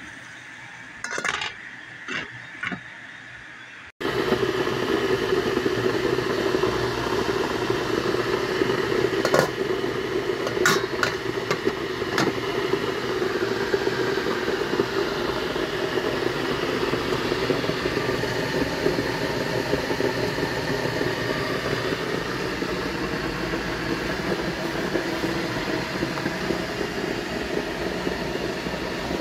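Steady loud whir of kitchen machinery that starts suddenly about four seconds in, after a few seconds of quieter hiss with a few short soft sounds. A handful of sharp clinks of metal cookware and lids come about five to eight seconds after it starts.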